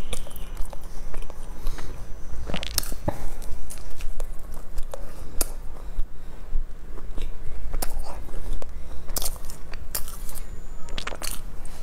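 Close-up eating sounds of a soft bread roll being bitten and chewed, with sharp crisp crackles of the crust every second or two.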